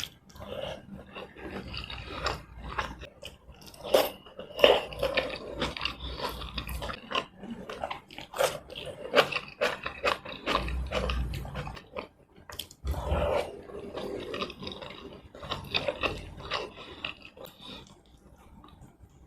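Close-miked chewing and wet mouth sounds of someone eating tomato rice and chicken in red chilli sauce, with irregular smacking clicks.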